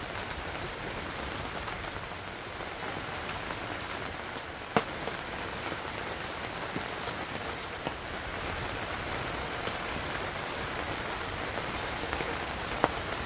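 Steady rain falling, an even hiss, with two sharp knocks: one about five seconds in, the louder one, and another near the end.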